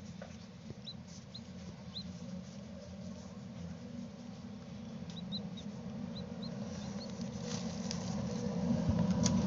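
Chick peeping from inside an unhatched hen's egg: about ten short, faint, high peeps in two loose groups, over a steady low hum.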